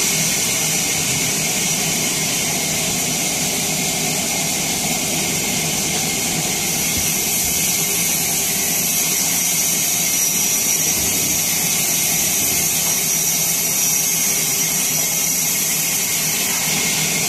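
Sawmill saw running steadily, with a continuous high whine over a dense mechanical noise that holds level throughout.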